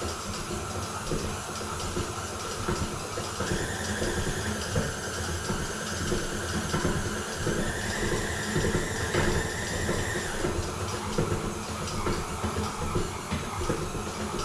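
Electric kitchen mixer running steadily while it kneads stiff boilie dough of fish meal, flours and eggs, with irregular knocking from the dough. Its motor whine steps up in pitch twice, a few seconds in and again about halfway through, then drops back near the end.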